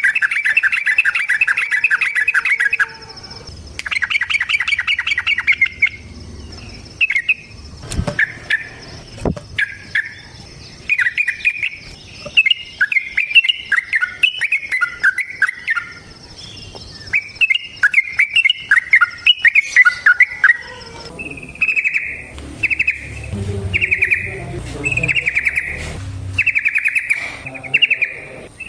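Yellow-vented bulbul (trucukan) singing: loud, rapid trilled bursts at the start, then varied chattering phrases, and a run of short repeated notes near the end. A steady high insect-like whine sits behind the first two-thirds.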